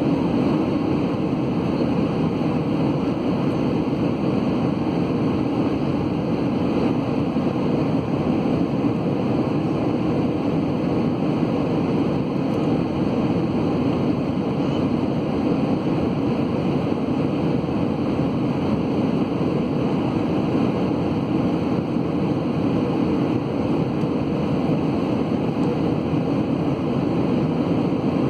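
Steady cabin noise inside an Airbus A320 in flight: the constant drone of the jet engines and the air rushing past the fuselage, heard from a window seat, unchanging throughout.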